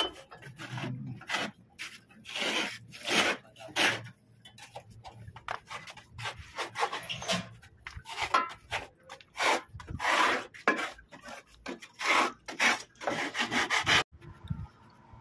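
Hand scraper scraping dirt and sludge from the base pan of an air-conditioning unit in irregular rasping strokes, stopping near the end.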